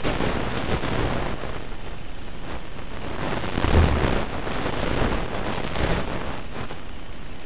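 Wind and motor noise on the onboard microphone of an FPV drone in flight: a steady rushing that swells in several surges, loudest about four seconds in.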